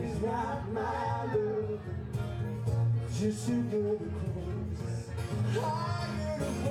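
Male voice singing a melody over strummed acoustic guitar.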